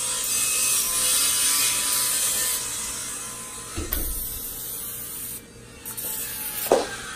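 Aerosol butter-flavoured cooking spray hissing onto the edges of a pizza crust: a long spray of about four seconds, a soft knock, then a shorter spray near the end.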